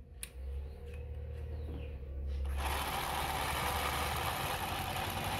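Singer 20U83 industrial zigzag sewing machine starting up and sewing denim. A low hum comes first, and about two and a half seconds in the machine picks up to a steady run.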